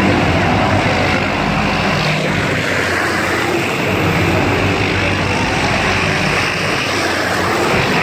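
MH-6/AH-6 Little Bird helicopters flying low overhead: loud, steady rotor and turbine engine noise with a low hum.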